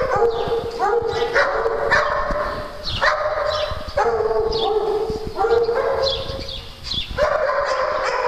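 A dog barking repeatedly, about one to two high, drawn-out barks a second, with a longer bark near the end.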